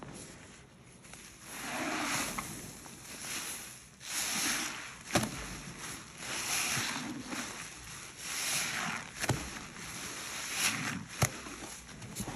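A sponge squeezed and pressed by a gloved hand in thick white foamy cleaning paste: wet squelching and crackling of suds in swells about every two seconds, with a few sharp clicks.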